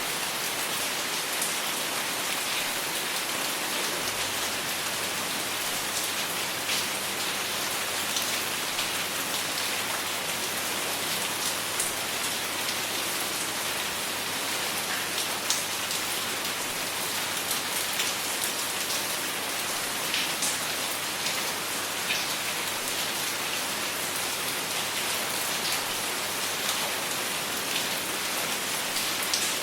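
Steady rainfall, a continuous hiss of rain on a surface with many individual drops ticking through it.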